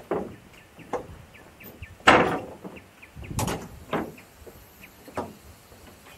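Footsteps walking along a railway track, about one step a second, with one louder scuffing step about two seconds in.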